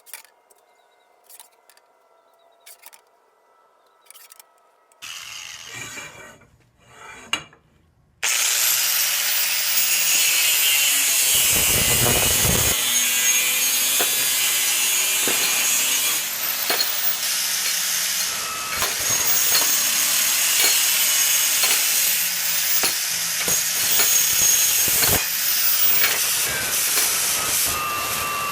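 Power tool working wood: after a few quiet seconds of small clicks and handling noises, a loud, steady noise of a powered tool cutting or sanding begins abruptly about eight seconds in and cuts off suddenly at the end.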